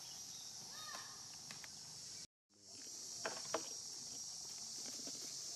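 Steady, high-pitched drone of an insect chorus, with a short chirp about a second in and a few sharp clicks a little after the halfway point. The sound cuts out completely for a moment just after two seconds.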